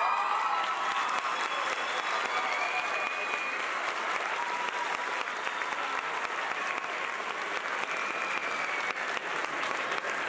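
Audience applauding steadily, with a few voices calling out and cheering over the clapping.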